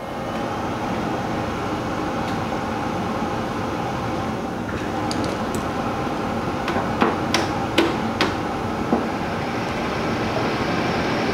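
Pontiac Fiero's electric radiator cooling fan running with a steady whir, switched on through its cleaned and adjusted relay. A few sharp clicks or taps sound over it in the second half.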